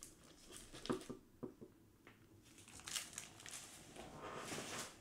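Comic books being moved and set down on a desk: soft rustling and crinkling with a few light knocks.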